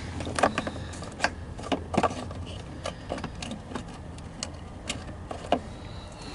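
Irregular sharp clicks and knocks of hard parts being handled and moved at the van's passenger seat, over a steady low hum.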